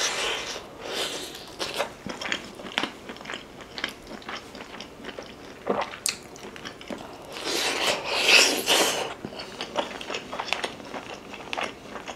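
Close-miked eating sounds: biting and chewing as tender beef-rib meat is pulled off the bone with the teeth, with many short wet mouth clicks. A louder, hissier stretch comes about eight seconds in.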